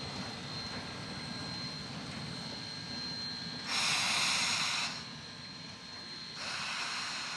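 Shay geared steam locomotive working past with a train, a steady low rumble, broken by two loud bursts of steam hiss, each about a second long: one about halfway through and one near the end.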